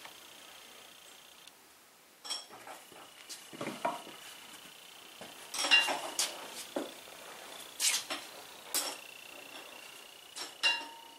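Scattered knocks and metallic clinks as boards and tools are handled and set down on a wooden workbench, about ten in all. Several clinks leave a short ringing tone.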